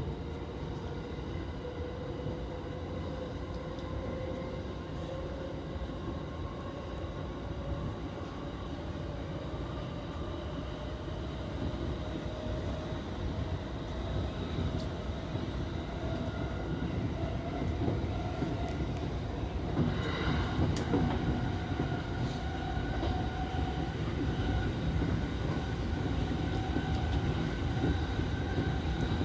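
Electric train running, heard from inside: the traction motors' whine rises slowly in pitch as the train gathers speed, over a steady rumble of wheels on track. A few clicks of wheels over rail joints come about two-thirds of the way through.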